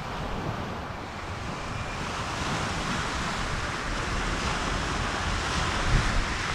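Steady rushing of wind and water that grows louder about two seconds in, with a low buffet of wind on the microphone near the end.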